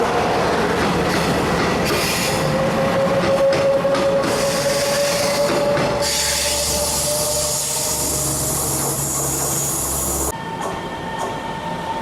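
Passenger train running through a station, its wheels squealing on the rails in steady, slightly shifting tones over rumble and clatter. About halfway through a loud hiss joins in, then cuts off abruptly.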